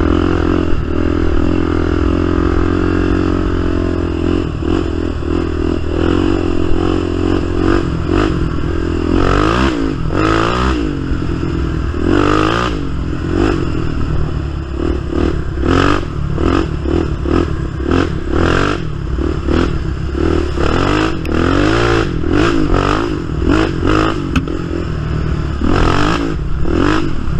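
Polaris Sportsman XP 1000 ATV's twin-cylinder engine running under way, the throttle opened and eased repeatedly so the revs rise and fall. Frequent knocks and rattles come through, mostly in the later part.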